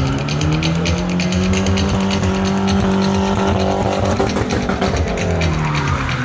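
A show vehicle's engine is revved hard and held at high revs for about five seconds, then eases off near the end, with music playing underneath.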